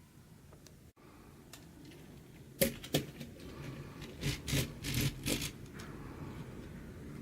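Plastic LEGO Technic pieces being handled: a sharp click about two and a half seconds in, another shortly after, then a run of short scraping rattles.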